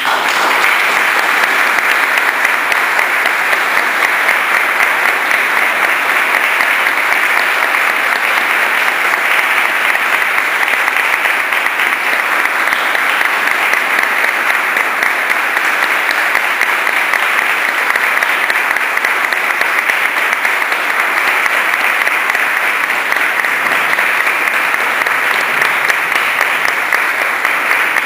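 Audience applauding: a long, even round of clapping that breaks out all at once as the music ends.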